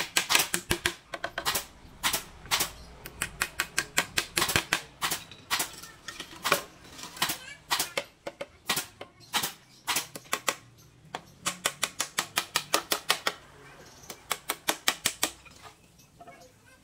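Bursts of rapid, sharp taps and knocks from hand-tool work on bamboo, up to about ten strikes a second with short pauses between bursts, tapering off near the end.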